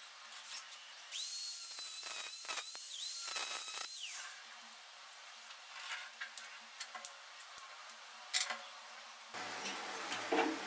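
Small electric angle grinder spinning up to a high whine, running for about three seconds with a few brief dips in pitch, then winding down. Light clicks and knocks of handling follow, with a clatter near the end.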